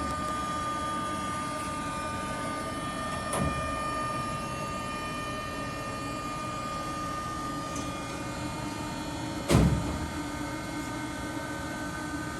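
Steady hum of running machinery with several steady whining tones, broken by a knock about three seconds in and a louder thump about nine and a half seconds in.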